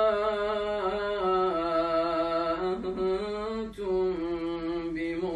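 A man's voice reciting the Quran in slow, melodic tajweed chant, drawing the syllables out into long held notes. Brief breaks come about three seconds in and again just before four seconds.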